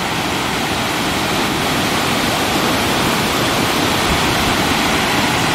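Water pouring over a hydroelectric dam's spillway and splashing onto rocks below: a steady, even rush of falling water.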